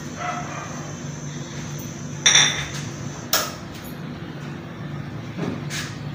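Two sharp clinks of glass and metal kitchenware, about two and three seconds in, and a fainter tick near the end, over a low steady hum.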